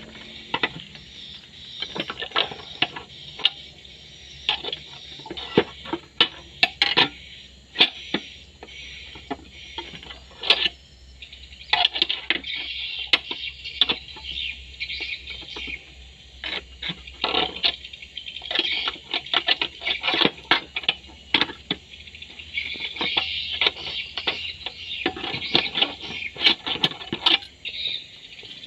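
Thin steel reinforcing bar clinking and scraping against the steel pins of a bending jig and a hooked hand bending bar as stirrups are bent. There are many irregular sharp metallic clicks and taps, some in quick clusters.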